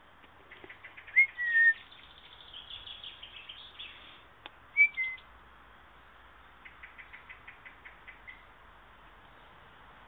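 Wild songbirds singing in the surrounding bushes: two loud, short whistled phrases that slur downward, about a second in and about five seconds in, with bursts of quick chirps, including a fast run of chirps near the end.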